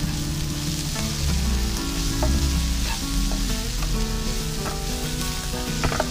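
Diced onion and grated carrot sizzling in a non-stick frying pan as a spatula stirs them, with the spatula scraping and clicking against the pan now and then.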